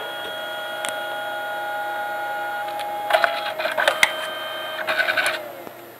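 Canon Selphy CP800 dye-sublimation photo printer running with a steady motor whine. About three seconds in, and again around five seconds, comes a rattling clatter of clicks as the print is fed out of the front. The whine then falls in pitch and stops near the end.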